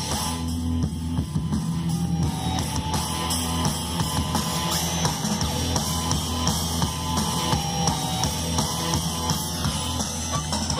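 Rock music with drums and guitar playing through a subwoofer driven by a TPA3116D2 2.1 amplifier board, with a lot of bass.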